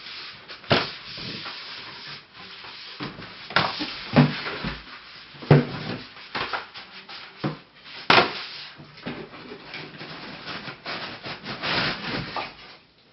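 Boxes and packaging being handled and opened: rustling and scraping, with several sharp knocks as things are set down or moved.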